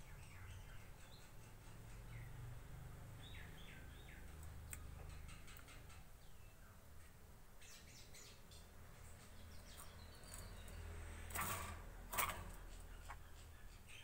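Faint, short, scattered chirps from a caged bulbul. Near the end come two brief louder rustling noises, a second or less apart.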